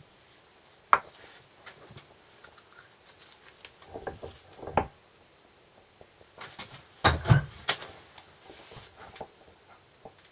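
Knocks and clinks of a large steel socket and a small aluminium seal housing being handled and set in place on a wooden block under an arbor press: a sharp knock about a second in, a short clatter around four to five seconds in, and the loudest double knock about seven seconds in, with light ticks between.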